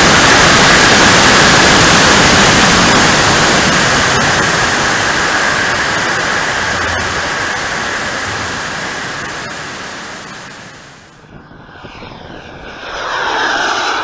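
Model Rafale B jet's small TJ74 turbine heard from its onboard camera: a loud, steady rushing roar of engine and airflow with a thin whine, fading gradually. About eleven seconds in the sound cuts to the jet heard from the ground as it flies past, its whine sweeping down in pitch.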